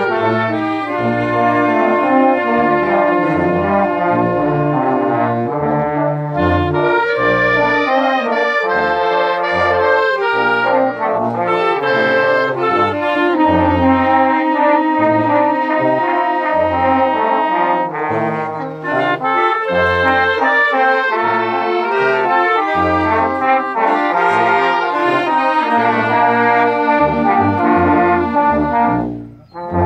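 Oaxacan village wind band of clarinets, saxophones, trumpets, trombones and sousaphones playing a slow bolero, the sousaphones sounding separate bass notes under the melody. The music breaks off briefly near the end, then starts again.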